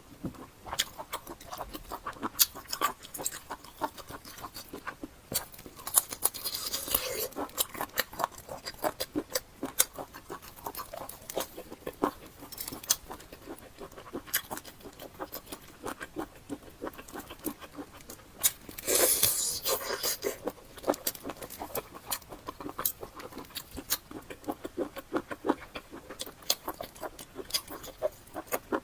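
Close-miked eating: steady chewing with many quick wet mouth clicks and smacks. Two longer, louder wet noises come about six and nineteen seconds in.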